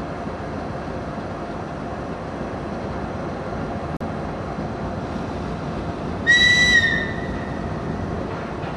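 2TE116 twin-section diesel locomotive running steadily as it moves slowly along. A little past halfway, a short, high-pitched whistle sounds for just over half a second.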